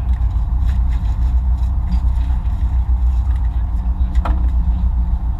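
Boat engine running with a steady low drone, and one sharp knock about four seconds in.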